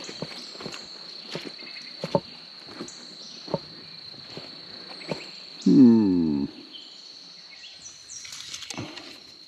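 Footsteps on damp forest ground, evenly paced, under a steady high-pitched insect drone. About six seconds in comes a short, louder low sound falling in pitch, of unclear source.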